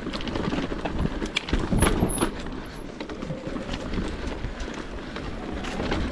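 Electric mountain bike rolling fast down a rough trail: tyres and frame clattering, with many sharp knocks and rattles over a low wind rumble on the microphone.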